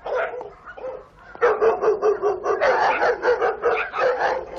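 A dog barking: a couple of barks at the start, then a fast, unbroken run of quick barks from about one and a half seconds in.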